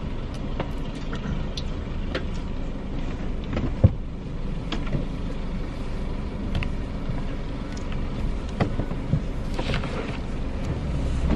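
Car running, heard from inside the cabin: a steady low engine and road rumble, with a few scattered light knocks, the sharpest about four seconds in.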